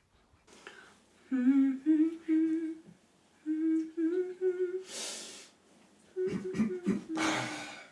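A voice humming a short tune in a series of held notes that step up and down. There is a short breathy hiss about five seconds in and another near the end.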